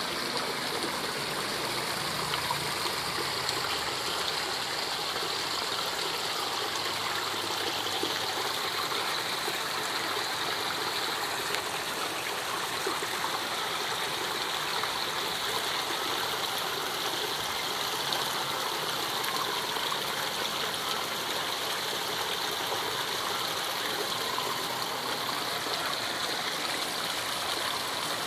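Water running and trickling steadily into a small backyard fish pond, an even rushing that holds unchanged throughout.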